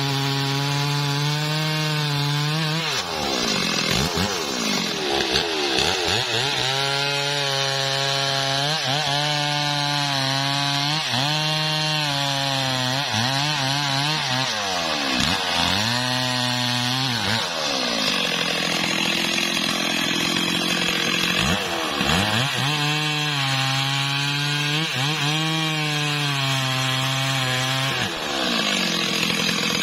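Stihl MS 382 two-stroke chainsaw running at high revs while sawing through mahogany wood. The engine note dips sharply and climbs back again many times, as the chain digs in under load or the throttle eases between cuts.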